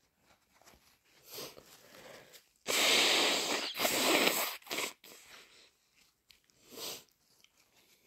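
A person with a cold blowing their nose hard and wet, twice in a row, each blow about a second long. Quieter sniffs come before, and a shorter blow or sniff comes near the end.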